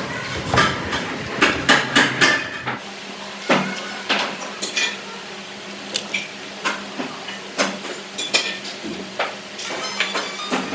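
Metal parts clanking and being struck: irregular sharp knocks, some with a brief ring. A low steady hum sets in about three seconds in.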